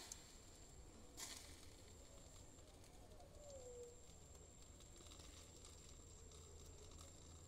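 Near silence: faint outdoor evening ambience with a steady high-pitched whine that breaks off once, and a short soft call sliding down in pitch about three seconds in.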